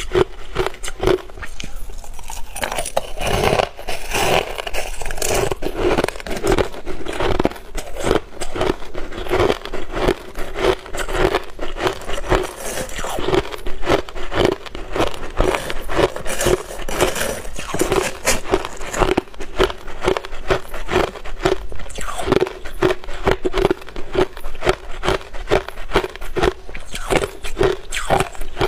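Crushed ice being chewed, crunching and crackling between the teeth in a steady rhythm of about two crunches a second.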